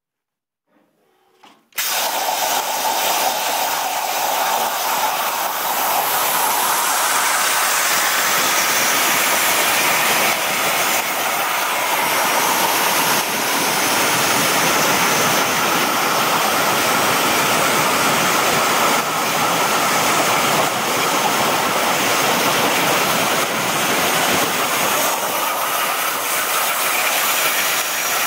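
Hypertherm Powermax 1250 plasma cutter at 80 amps, its arc starting suddenly about two seconds in and then cutting through 1-inch steel plate with a loud, steady hiss.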